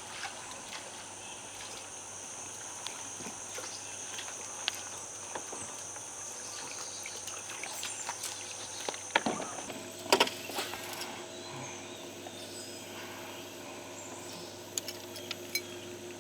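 Outdoor background on the water: a steady hiss with a high, even buzz that cuts off about ten seconds in. A few sharp knocks and splashes come around nine to ten seconds in, and a fainter pair near the end.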